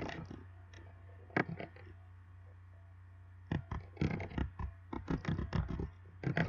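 Computer keyboard keys and mouse clicks as numbers are typed into entry fields: a few single clicks in the first couple of seconds, then a quick run of taps from about halfway. A steady low electrical hum runs underneath.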